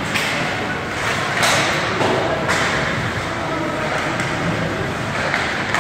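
Ice hockey play in an echoing rink: a steady scrape and hiss of skates on the ice, broken by several sharp knocks against the boards, with faint voices.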